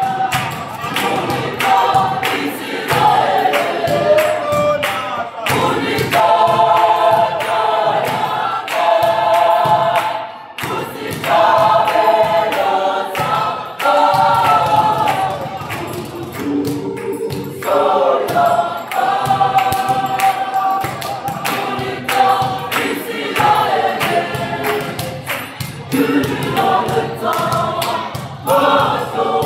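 Gospel choir singing together in harmony, in sung phrases with short breaths between them.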